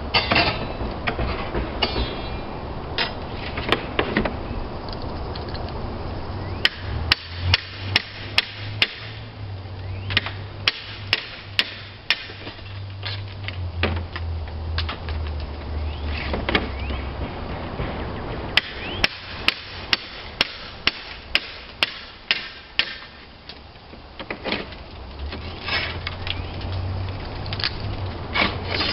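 Hammer blows on roofing slate, in quick runs of several strikes about two a second with pauses between, typical of a slater nailing slates in a roof repair. A low steady hum runs underneath for part of the time.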